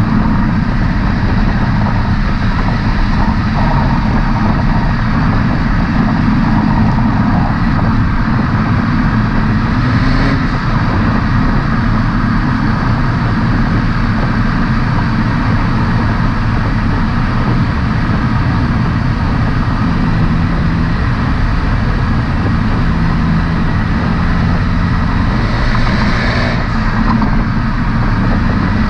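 Honda Civic Hatchback Sport's turbocharged engine and exhaust running steadily at a constant load. There are two brief higher-pitched rushes, one about ten seconds in and one near the end.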